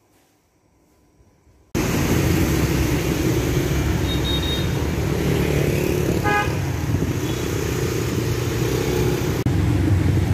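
Near silence for the first couple of seconds, then street traffic of motorbikes and cars running steadily, with a short horn toot about four seconds in and another honk about six seconds in.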